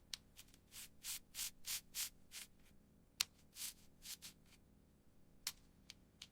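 Faint short rubbing strokes, about three a second for a couple of seconds, then a few scattered ones, with a sharp tick about three seconds in and another near the end.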